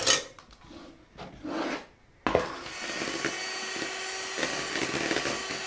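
A short clatter, then an electric hand mixer switched on a little over two seconds in and running steadily, its beaters whipping sweet cream in a bowl.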